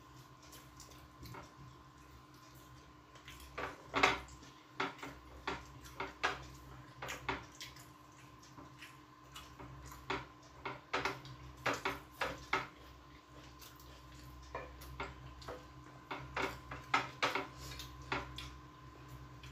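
Eating rice by hand from glass plates: irregular clicks and scrapes of fingers against the plates as rice and chicken are mixed and scooped, loudest about four seconds in, over a faint steady hum.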